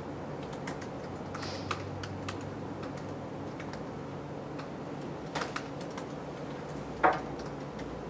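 Scattered keystrokes and clicks on a laptop keyboard, with one louder tap about seven seconds in, over a steady low room hum.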